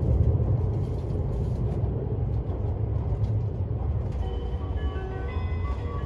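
Cabin noise of an E5-series Shinkansen bullet train running: a steady low rumble with a hiss above it. About four seconds in, a light melody of short notes begins over it.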